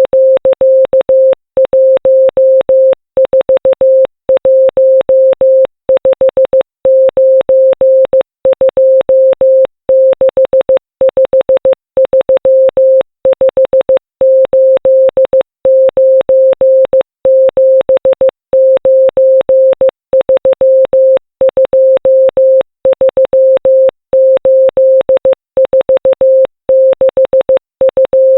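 Morse code sent as a pure 528 Hz tone, keyed on and off in dots and dashes spelling out the digits of pi. The characters come in groups with short pauses between them, and there is a faint click at each keying edge.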